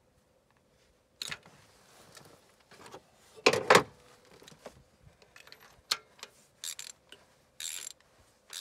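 Irregular metallic clinks and clatters of hand tools being handled in an engine bay during a spark plug change, with some rustling between them. The loudest clatter comes about three and a half seconds in.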